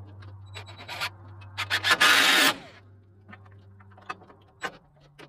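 Power tool working on a wooden run frame: a steady low hum under scraping and clicks, with a loud harsh burst about two seconds in.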